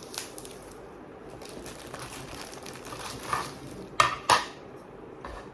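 Soft rustling of plastic packaging being handled, with two sharp plastic clicks about four seconds in.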